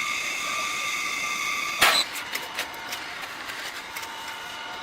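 A steady high whine from a workshop machine, with one sharp knock just under two seconds in, after which the whine carries on more quietly.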